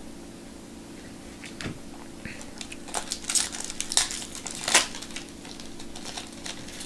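Foil trading-card pack wrapper being crinkled and torn open by hand. A string of sharp crackles starts about a second and a half in and is loudest in the middle.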